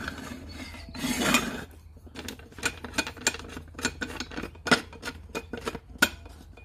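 Steel seat slide rails being fitted onto a tractor seat pan, clicking and clinking against it. A scrape about a second in, then a run of light, irregular metal clicks.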